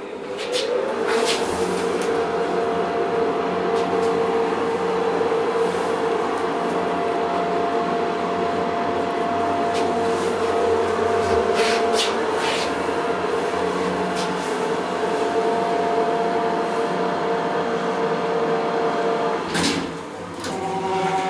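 SMW elevator ascending. Its drive starts up with a hum that rises in pitch about a second in, runs as a steady hum with a few clicks along the way, and cuts off suddenly as the car stops near the end.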